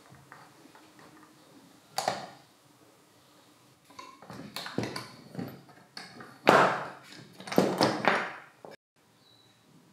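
A steel rotary-hammer spindle assembly clinks and knocks against a steel puller frame as it is worked and lifted out. There are several separate metal knocks with short ringing and some scraping between them, the loudest about six and a half seconds in.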